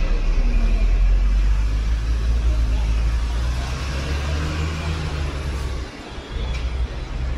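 Hong Kong double-decker electric tram in motion: a loud, low rumble of its running gear on the rails, with a low steady hum. The rumble eases off about six seconds in.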